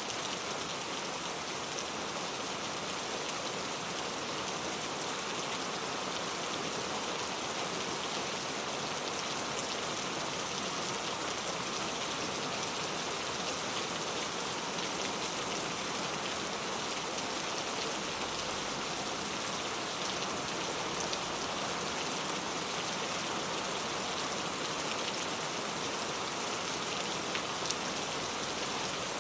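Steady rain falling, a continuous even hiss of drops with fine individual patters, no thunder.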